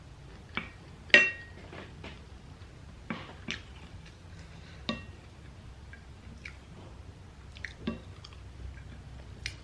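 Eating sounds: a utensil clinking against a dish in scattered sharp clicks, a few with a short ring, the loudest about a second in, along with chewing.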